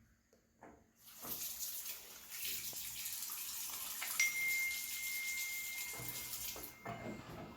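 Water running, like a tap, starting about a second in and stopping near the end, with a steady high-pitched tone coming in about halfway through.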